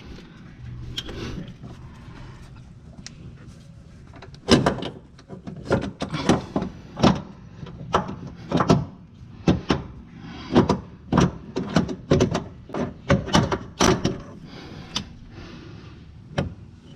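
Sharp metal knocks and clunks in irregular quick succession, starting about four seconds in and going on until near the end, as the starter motor is worked out past the front axle.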